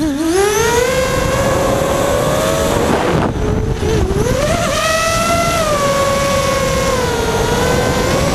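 FPV quadcopter's electric motors and propellers whining. The pitch climbs sharply right at the start as throttle comes up out of a dive, dips and recovers about three and a half seconds in, then holds fairly steady with small rises and falls. Wind noise on the onboard microphone runs underneath.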